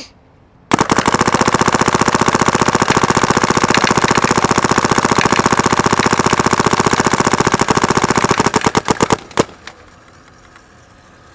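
SP Shocker XLS electropneumatic paintball marker firing a rapid, steady string of shots for about eight seconds, then one last shot, emptying paint through the gun on its compressed-air tank.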